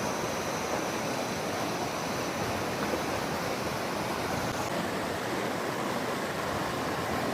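Rain-fed waterfall rushing steadily, a continuous hiss of falling water, with a slight change in its high hiss a little past halfway.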